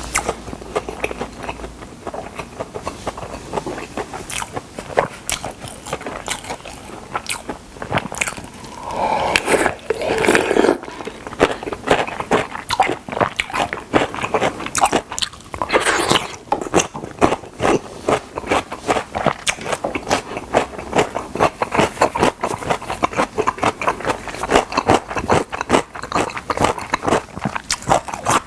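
Close-miked biting and chewing of fried chicken drumsticks: a dense, continuous run of crisp crunches and clicks from the mouth.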